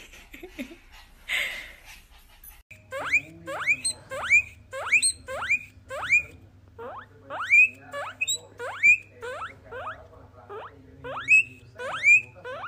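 Guinea pig wheeking: a quick series of high squeals, each rising sharply in pitch, about two a second, starting about three seconds in.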